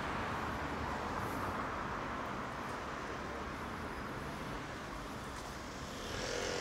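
Steady city street traffic noise. Near the end a vehicle's engine note comes in and starts to rise.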